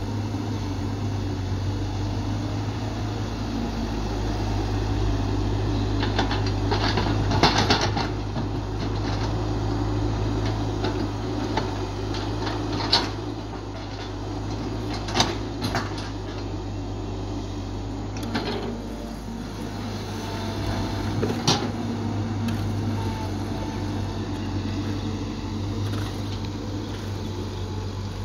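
Caterpillar 312 excavator's diesel engine running steadily under digging work, with several sharp knocks from the working excavator.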